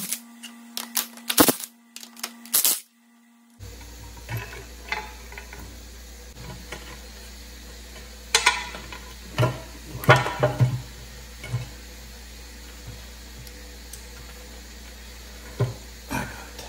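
A cordless impact wrench runs for about three seconds, spinning out the bolts on a dozer's steering-brake cover with a steady whir and rattling clicks. Then come scattered metal knocks and clanks as the heavy cast cover is worked loose by hand.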